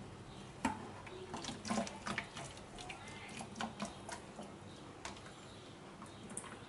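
Kitchen handling noise at a steel sink as a mesh strainer of drained instant noodles is moved: irregular light knocks and clicks, with some water sound.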